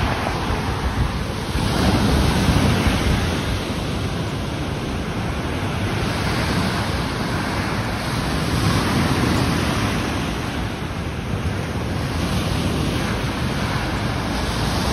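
Surf breaking on a sandy beach: a steady wash of waves that rises and falls gently as they come in, with wind rumbling on the microphone.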